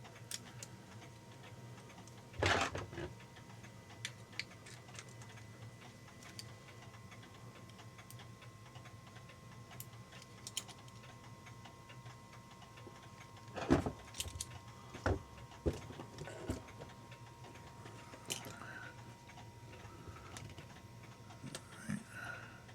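Scattered small metallic clicks and taps from working the mainspring and click of an Ingraham mantle clock movement while letting its power down. Two louder knocks come about two and a half and fourteen seconds in.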